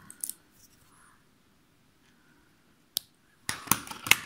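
Hands working fishing line and a hook on a tabletop: a single sharp click about three seconds in, then a quick cluster of clicks and scraping near the end.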